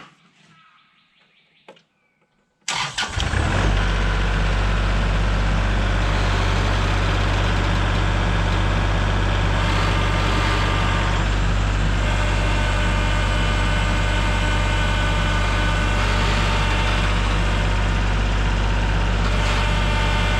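An engine starts about three seconds in, catching after a brief rough moment, and then runs steadily.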